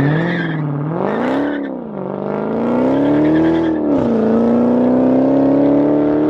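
Dodge Challenger SRT's V8 exhaust revving. The pitch rises and falls twice, then climbs steadily as the car accelerates.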